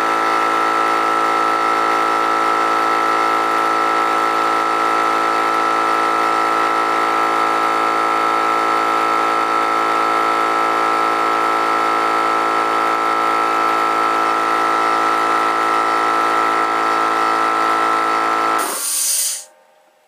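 21-gallon Central Pneumatic air compressor running steadily as it pumps up the tank, then shutting off near the end when the pressure switch reaches its cut-out at about 110 psi, with a short hiss of air as it stops.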